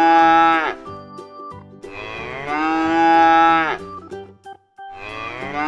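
Cow mooing: long, drawn-out moos, each falling in pitch as it ends. One moo is ending at the start, a full one follows about two seconds in, and another begins near the end.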